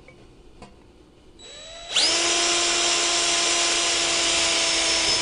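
DeWalt cordless drill with a 3 mm high-speed steel bit drilling through a thin galvanised steel trunking lid into a wood backing block. The motor starts softly about one and a half seconds in, rises quickly to full speed about two seconds in, then runs steadily at one pitch.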